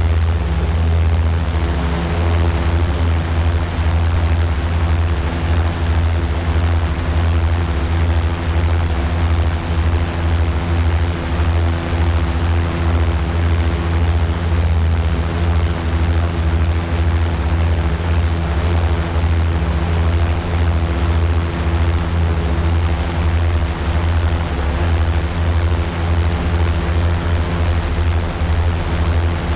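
Multirotor drone's electric motors and propellers running steadily, heard from a camera mounted on the drone itself: a loud, even hum with several steady tones over a hiss.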